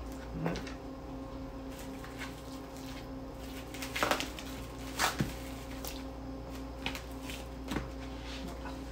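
Raw chicken breasts and the plastic wrap of a foam meat tray being handled: a few scattered crinkles and taps, loudest about four and five seconds in, over a steady low hum.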